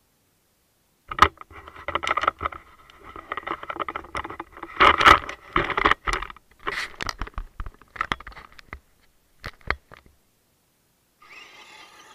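Radio-controlled Traxxas Bandit monster truck with a 21-turn brushed motor driving hard on loose dirt. Its motor whines and its tyres scrape and throw gravel, with many sharp pattering hits. The noise starts about a second in, stops around ten seconds, and a fainter whine returns near the end.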